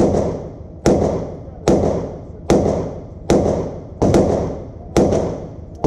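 SIG Sauer P365 9mm compact pistol firing a steady string of about seven shots, a little under a second apart, each a sharp crack with a short echoing tail.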